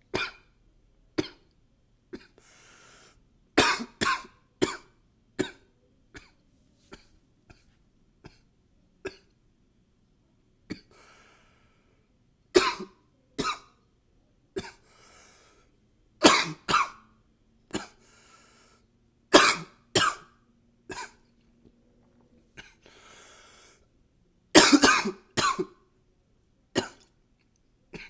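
A man coughing repeatedly, in short fits of two to four hard coughs, with audible breaths drawn between some of the fits. The loudest fit comes near the end.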